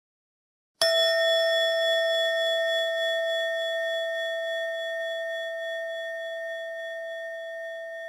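A meditation chime struck once about a second in, ringing with a clear sustained tone that slowly fades.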